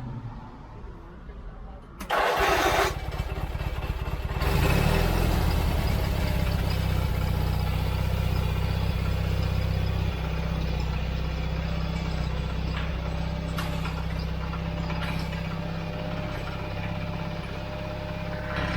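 John Deere 317 riding mower's Kohler twin-cylinder engine starting: a brief burst of starter cranking about two seconds in, then the engine catches a couple of seconds later and runs steadily, settling slightly lower about ten seconds in. It starts and stays running with its freshly cleaned carburetor.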